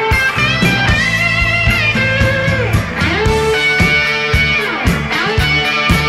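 Background rock music: an electric guitar playing bending, sliding notes over a steady drum beat.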